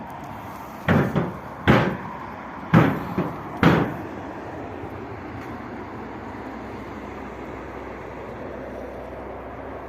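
Four loud knocks about a second apart, some followed by a lighter rebound hit, then a steady background hiss.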